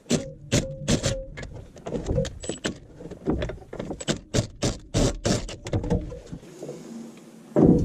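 Socket wrench working a 21 mm hub bolt loose on a Ford F350 front hub: a run of sharp, uneven metal clicks for about six seconds, then quieter, with one louder knock near the end.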